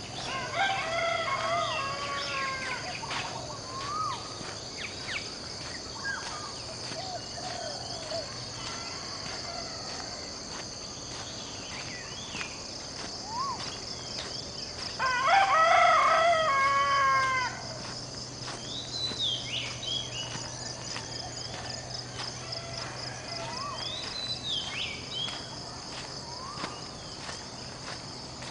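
A rooster crows twice, about half a second in and again, louder, about fifteen seconds in, over a steady high insect drone, with small birds chirping now and then.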